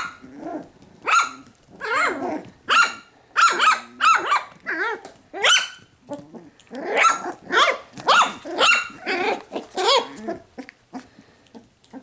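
Young puppies yipping and barking over and over in short, high-pitched calls, about two a second, with brief pauses about six seconds in and near the end. The breeder takes it for the puppies calling to go back to their mother.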